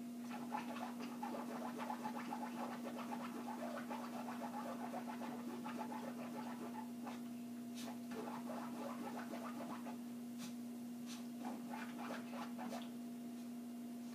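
Silky terrier scratching and shifting in a blanket-covered dog bed: a dense, scratchy rustle of fabric with a few sharper clicks, over a steady low hum.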